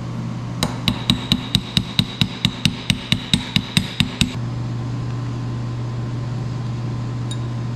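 About sixteen quick, evenly spaced metallic taps, roughly 0.2 s apart, on transmission gear-train parts, with a bright ring to each strike. They stop about four seconds in, leaving a steady low hum.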